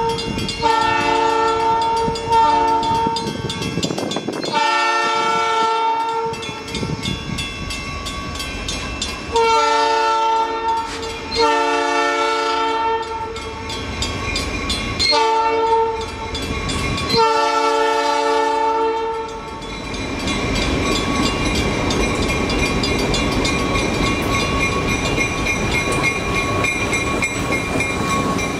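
Nathan P3 three-chime air horn on an EMD MP15AC diesel switcher sounding the grade-crossing signal, long, long, short, long, twice over as the train approaches. After about twenty seconds the horn stops, and the locomotive's diesel engine and the freight cars pass close by, a steady rumble of engine and wheels on rail.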